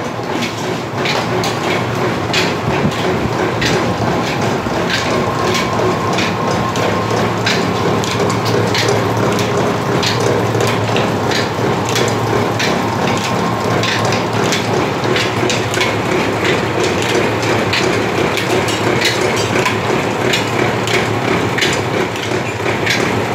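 20-year-old Upkar oil expeller running, belt-driven by an electric motor: a steady, dense mechanical clatter with many sharp cracks, over a faint steady whine.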